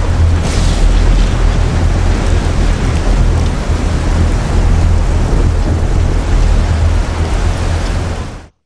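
Storm wind and heavy rain, a loud, even rushing noise over a deep, continuous rumble, cutting off suddenly near the end.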